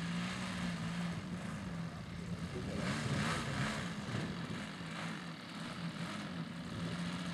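Radio-controlled model airplane's engine running as it taxis, a steady hum that rises and falls in pitch a few times around the middle.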